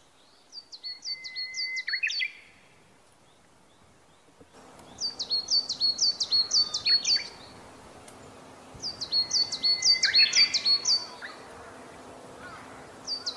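Coal tit singing a quick, high, repeated two-note phrase, 'chitchipi chitchipi', a song variant it has just switched to. It comes in three bursts of about two seconds each, with short gaps between. A thin, steady, lower whistle sounds briefly under the first and third bursts.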